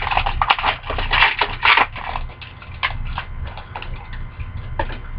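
Hockey card packs and cards being handled: dense crinkling and rustling for about the first two seconds, then scattered sharp clicks and snaps.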